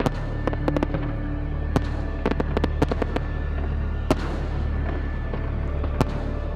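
Aerial fireworks bursting in an irregular run of sharp bangs and crackles, over background music with a steady low drone.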